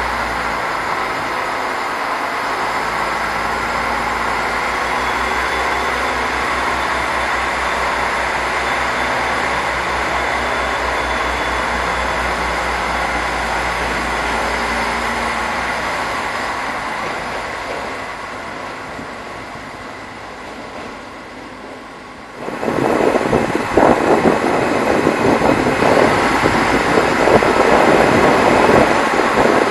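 TER regional train running into the station at low speed, a steady loud mechanical noise that fades away over several seconds. Then, after an abrupt change, gusty wind buffets the microphone.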